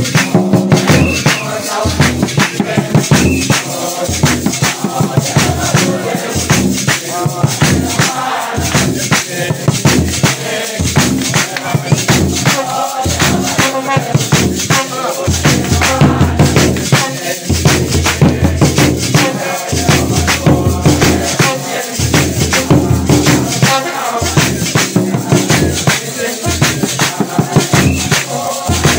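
Live worship music: drums beaten in a steady, fast rhythm together with hand clapping and a shaking, rattling percussion.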